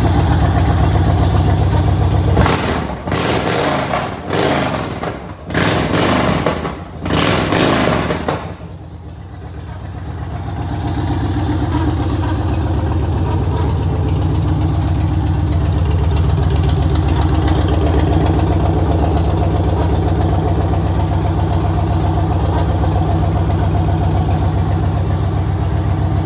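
Yamaha XV1900 Stratoliner's air-cooled V-twin engine idling with a steady, even beat. Several short, louder bursts come in the first eight seconds, then the engine settles back to an even idle.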